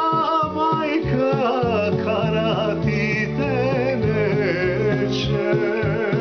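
Man singing a folk song with a wavering, ornamented voice and strong vibrato, accompanying himself on an acoustic guitar with steady strummed chords.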